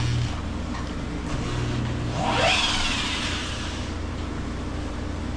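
Cordless drill run briefly: its motor whine rises quickly and then winds down, over a steady low hum.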